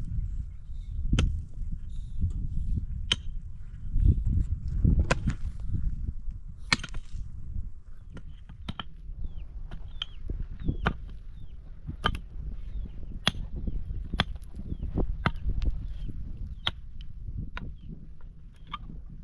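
A series of sharp strikes, about one a second from around eight seconds in, over a low rumble.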